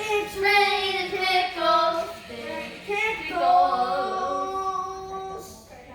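A voice singing the end of a song, with long held notes in the second half.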